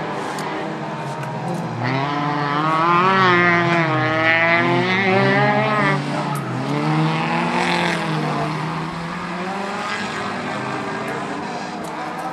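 Hill-climb race car engine at full throttle up a winding road, revving up and dropping back in pitch at each gear change, loudest about two to six seconds in, then easing as the car moves on.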